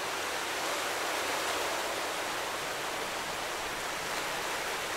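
Ocean surf: a steady, even wash of waves with no distinct swells or breaks.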